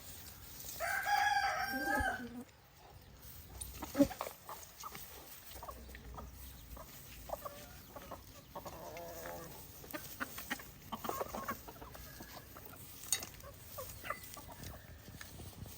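A rooster crows once about a second in, one long call that drops in pitch at the end, then chickens cluck at intervals with scattered short calls. A single sharp knock comes about four seconds in.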